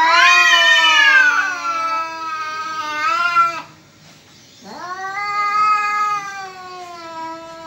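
Domestic cat yowling in a face-to-face standoff with another cat: two long caterwauls that waver in pitch, the first about three and a half seconds long, the second starting after a pause of about a second. It is the warning yowl that comes before a cat fight.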